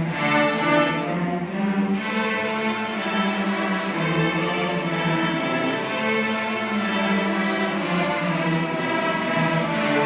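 A middle school string orchestra playing: violins, cellos and double basses bowing held notes together, changing chord every second or two.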